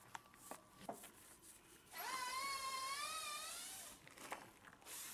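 An animal's long cry with a wavering pitch, starting about two seconds in and lasting about two seconds, among a few faint light knocks.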